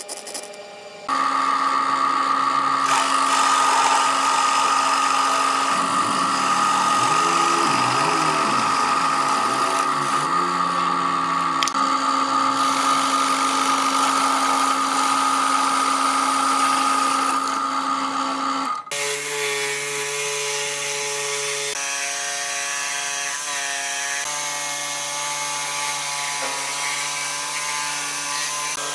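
An electric drill boring a large hole through a wooden disc with a flat-bottomed Forstner-type bit: a steady motor whine whose pitch wavers while the bit bites. About two-thirds of the way through it stops abruptly, and a table-mounted jigsaw takes over, running steadily as it cuts the disc's curved edge.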